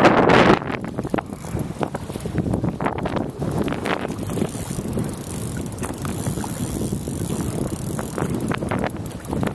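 Strong wind buffeting the microphone, with a loud gust right at the start, and light irregular clicking from a spinning reel being cranked as a hooked fish is reeled in.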